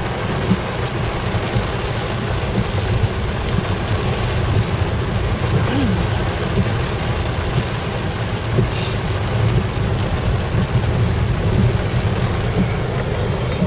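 Steady low rumble of a moving vehicle, with a brief hiss about nine seconds in.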